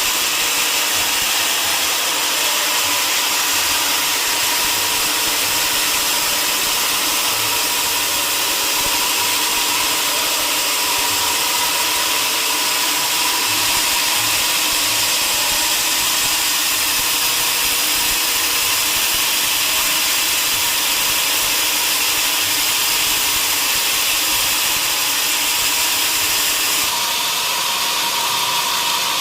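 Sawmill saw running steadily with a loud, even high hiss and a constant whine, typical of a mill saw working through a mahogany log. The sound shifts slightly near the end.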